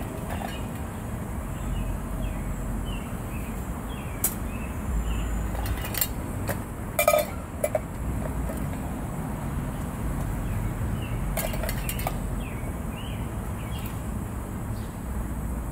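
A few light clinks and taps of spice containers and utensils being handled on a camp table, the loudest about seven seconds in, over a steady low outdoor rumble.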